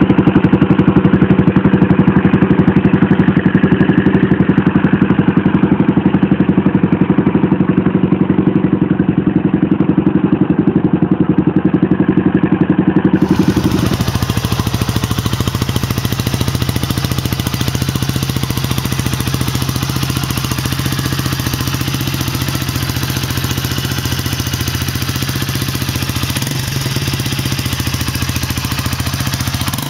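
Kawasaki Estrella single-cylinder four-stroke motorcycle engine idling steadily through its exhaust. About halfway through it changes to a second Estrella idling, a little quieter and lower-pitched.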